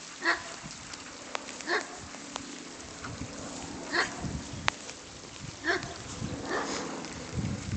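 A dog barking in short, sharp barks, about five of them spaced a second or two apart.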